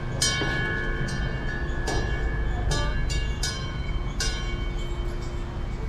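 Brass bell on a decorative locomotive being struck again and again at uneven intervals, each strike leaving a ring that fades slowly.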